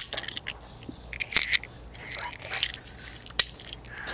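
Irregular crunching and crackling clicks, with a few louder sharp clicks among them.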